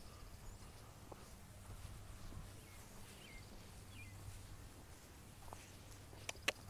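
Quiet open-air ambience with a low steady hum and a few faint, short bird chirps around the middle, then two sharp clicks near the end.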